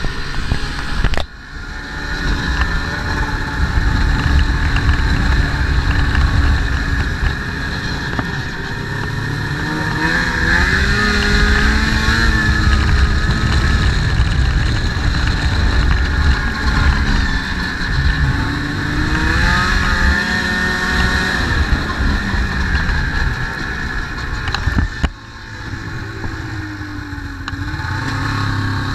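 Snowmobile engine running under way, its pitch rising and falling twice as it speeds up and eases off. The sound changes abruptly about a second in and again near the end.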